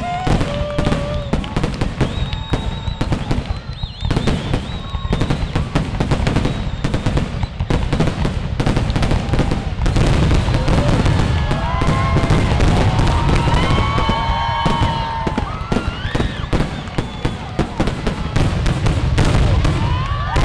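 Fireworks finale: aerial shells bursting in a dense, unbroken barrage of bangs and crackle. High tones that rise and then hold sound over the bursts several times, most around the middle and near the end.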